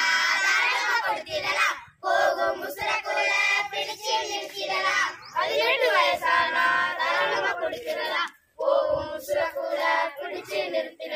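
A group of schoolchildren singing a Tamil song together in unison, with no instruments. They sing in long phrases with short breaks for breath about two seconds in and again after about eight seconds.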